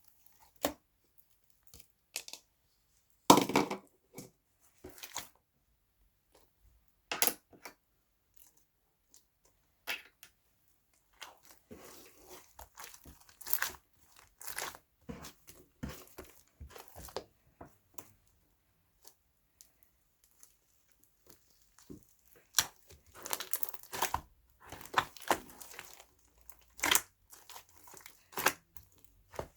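Irregular crinkling and crackling handling noises, short clicks and rustles that come in scattered clusters and grow busier in the second half.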